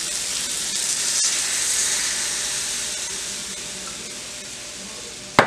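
Water poured into a hot frying pan of spiced potatoes and paneer, hissing and sizzling as it hits the oil and masala. The sizzle swells in the first couple of seconds, then slowly dies down as the pan cools. A single sharp knock comes near the end.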